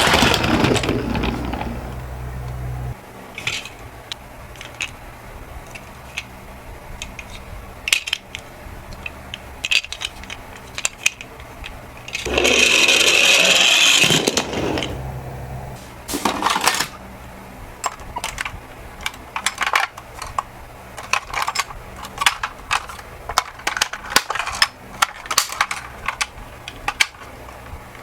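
Toy minicar ambulances and buses clicking and clinking as they roll down a slope and knock into one another, with a dense rolling rattle for about two seconds midway.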